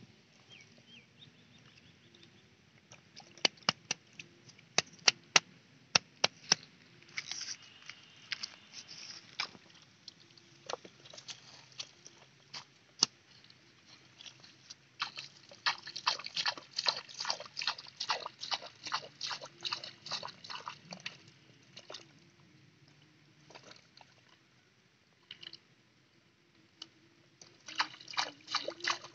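Hands scooping and splashing in a shallow muddy puddle: quick wet slaps and splashes of mud and water, coming in bursts with a quieter stretch a little after the middle.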